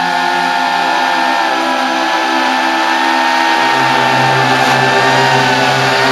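FPV racing quadcopter's T-Motor brushless motors and propellers whining steadily as it flies, the pitch dipping and rising with the throttle near the end.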